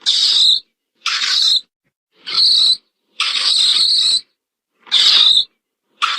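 Short raspy animal calls presented as a mole's sound: about six bursts, each half a second to a second long, separated by gaps of dead silence.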